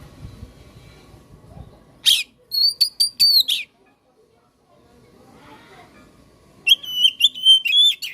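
Oriental magpie-robin (kacer) singing two short, loud phrases: the first about two seconds in, the second near the end. Each is a run of high whistled notes mixed with sharp clicks.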